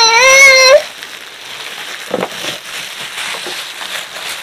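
A toddler's loud, high squeal lasting under a second at the start, followed by crinkling and rustling of clear plastic wrap being pulled off an air fryer.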